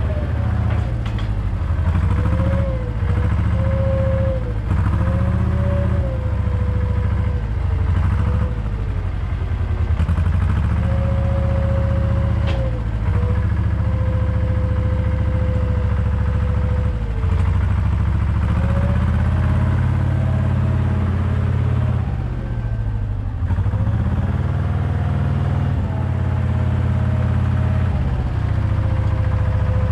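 Diesel engine of a Zettelmeyer wheel loader running close by, with a whine that rises and falls in pitch as the engine revs, while it carries a hay bale on its bale fork.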